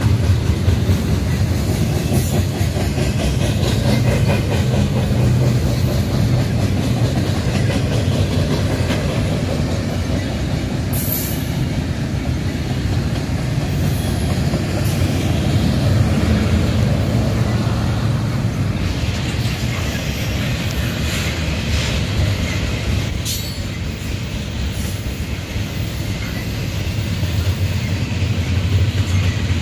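Double-stack intermodal well cars rolling past on steel rails: a steady deep rumble with wheels clicking over the rail joints, and a few brief high squeals from the wheels.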